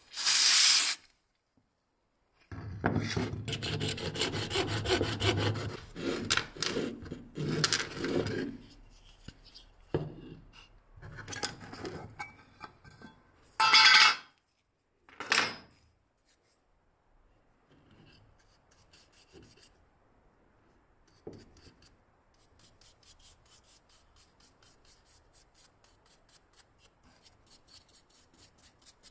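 A short loud hiss from an aerosol spray can at the start, then rough rubbing on wood. In the last several seconds a brush works a dark paste onto the wood in quick, faint, repeated strokes.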